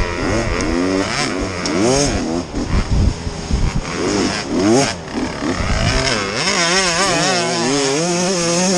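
Dirt bike engines revving, the pitch climbing and dropping again and again as the throttle is worked. Near the end the revs hold high with a quick wavering in pitch.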